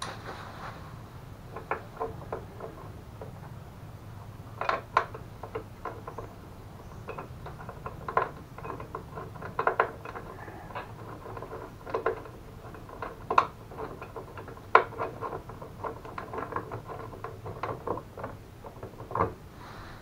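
Irregular light clicks, taps and clinks of metal hand tools and bolts being handled, with a few sharper knocks, over a faint low hum.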